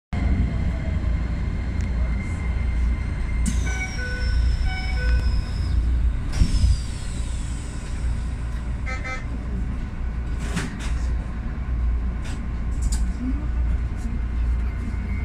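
A Keisei 3050-series commuter train standing at a platform, heard from its driver's cab: a steady low hum, with a run of electronic chime tones and a falling high whine a few seconds in, a second falling whine, a quick series of beeps about nine seconds in and a sharp thump soon after.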